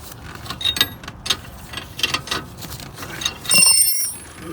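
Ratchet wrench clicking and metal tools clinking as a rear brake caliper bolt is worked on, with a louder metallic clank that rings briefly about three and a half seconds in.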